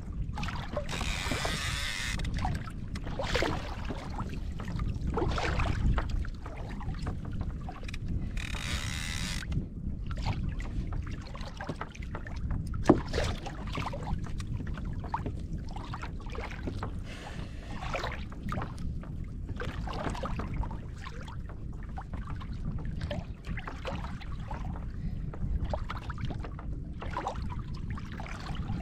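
Sea water sloshing and lapping against a fishing kayak's hull, with a steady low rumble of wind and water on the microphone. Small knocks and clicks come and go throughout, with a brief hiss of splashing twice and one sharp click about a third of the way in.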